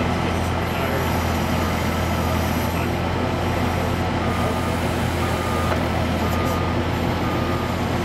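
Avant 528 compact loader's diesel engine running steadily under hydraulic load as its backhoe attachment digs soil. A thin beeping tone comes and goes about once a second in the second half, like a reversing alarm.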